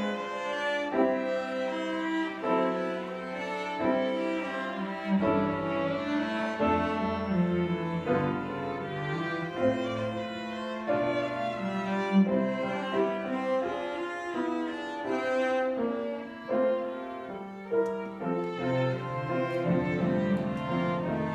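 Violin and cello playing a classical piece together, both bowing sustained, changing notes.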